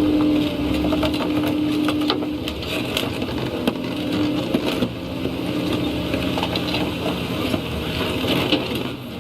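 Heavy machinery working: an engine running under load with a steady hum for the first couple of seconds, mixed with irregular cracks, clanks and grinding knocks throughout.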